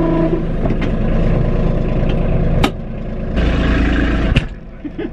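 Kubota B2650 tractor's three-cylinder diesel engine running; its steady hum breaks up a moment in. Sharp clicks come about a second in and again midway. A louder rumbling stretch of about a second late on ends in a further click.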